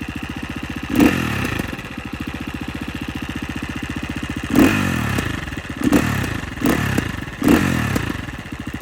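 Husqvarna FE 350 enduro dirt bike's single-cylinder four-stroke engine idling with a rapid even beat, blipped five times: once about a second in, then four quick blips in the second half. Each blip falls straight back to idle.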